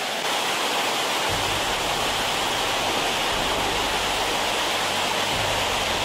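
Waterfall rushing steadily, an even wash of falling water heard close up. A low rumble joins in about a second in.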